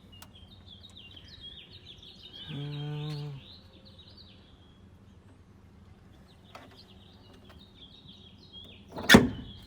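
Wild birds chirping steadily in the background, with a brief steady hum about two and a half seconds in and a single sharp knock near the end.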